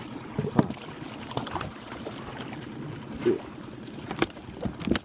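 Boat motor running steadily while in gear, with irregular knocks and clatter on board.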